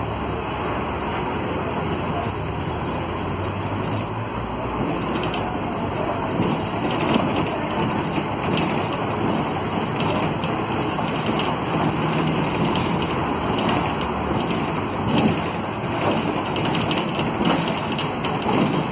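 Inside a Volvo B9SALF low-floor city bus under way: the drone of its rear-mounted Volvo D9A six-cylinder diesel mixed with road noise. From about a quarter of the way in there are frequent short rattles and knocks.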